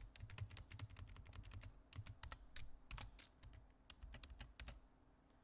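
Computer keyboard typing: a quick, irregular run of key clicks that stops about a second before the end.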